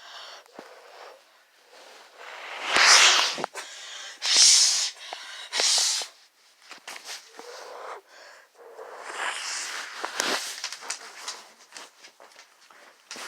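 A person making weird, breathy wheezing noises with their mouth and throat: three loud hissing bursts a little over a second apart, then quieter ones later.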